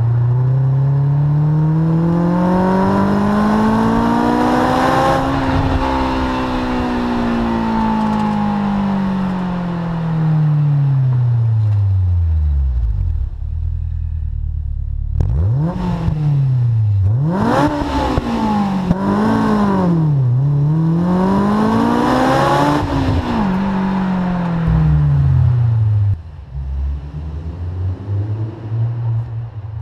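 Honda S2000's four-cylinder engine through a Supersprint exhaust, revving up in one long smooth climb and falling back, then a string of quicker revs rising and falling, with the note settling low again near the end.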